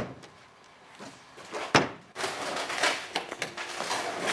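Two sharp knocks, one right at the start and a louder one nearly two seconds in. They are followed by a continuous scraping, rustling clatter of parts being handled.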